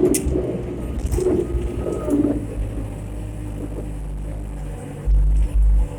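Skid steer engine running steadily while loading. About five seconds in come a few heavy low thumps.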